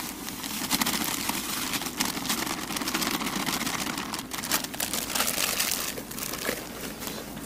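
Plastic bag of dry feeder groundbait crinkling as it is handled and tipped, the feed pouring out into a plastic bucket; the crackling is busiest through the middle and eases off near the end.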